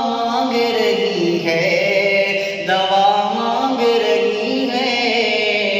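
A man singing an Urdu naat, a devotional song, drawing out long held notes that slide between pitches.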